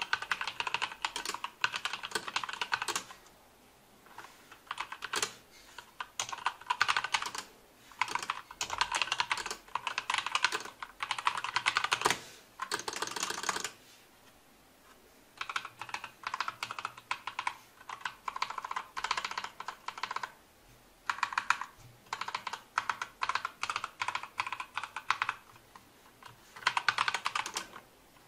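Typing on a Royal Kludge G87 mechanical keyboard with red (linear) switches, in fast runs of key presses a few seconds long broken by short pauses. These are the keystrokes of a red-switch board, not the clicks of a blue-switch one.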